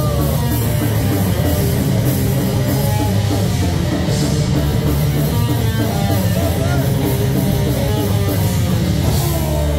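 Live heavy metal band playing loud: distorted electric guitar, bass guitar and a drum kit going together.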